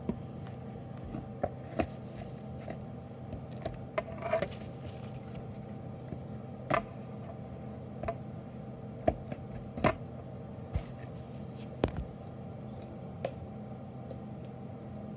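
Hands squishing and mixing strawberry frosting and powdered sugar in a glass bowl, with scattered taps and clicks of fingers and a spatula against the glass, over a steady electrical hum.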